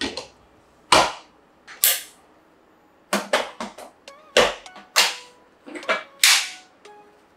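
Hard plastic clacks and clicks from a Ninja Creami ice cream maker's clear outer bowl as it is handled, closed and locked onto the machine. About a dozen sharp knocks: a few spaced out at first, then a quicker run of them.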